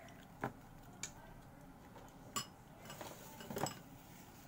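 A few sharp clinks and taps of cutlery and dishes on a table, spaced about a second apart, then a quicker cluster of taps about three seconds in.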